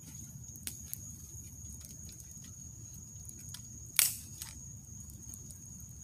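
Campfire embers crackling: scattered small ticks and pops, with one sharp, loud pop about four seconds in, over a steady low rumble.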